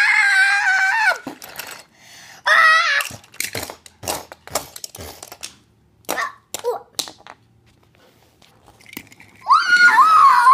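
A child's high-pitched screams, once at the start and again about two seconds later. Then a run of sharp clacks and knocks from die-cast toy cars and plastic track pieces being handled on a wooden table. Near the end comes a long high wail that rises briefly and then slides slowly down in pitch.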